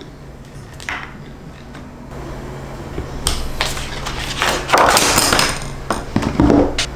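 Sheets of paper and clear PVC plastic rustling and sliding as they are handled on a workbench, with a sharp click about a second in and a few knocks, the loudest near the end.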